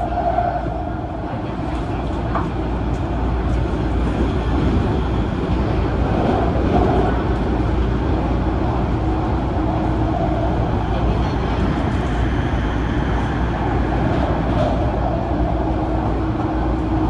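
Running noise of an MTR Tung Chung Line Adtranz-CAF electric multiple unit under way: a steady low rumble, with a faint hum that comes and goes.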